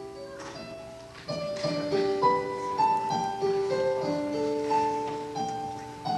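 Piano playing a gentle instrumental lead-in of held notes, a melody over sustained chords.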